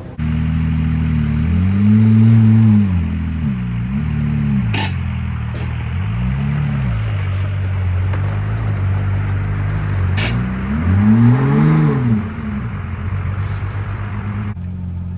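Porsche Boxster flat-six, a freshly installed replacement engine still cold, idling and blipped up and back down four times, the last rev the highest. Two sharp clicks sound during the idle between revs.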